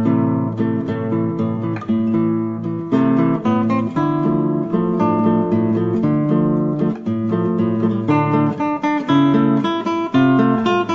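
Acoustic guitar music, plucked and strummed notes following one another in quick succession.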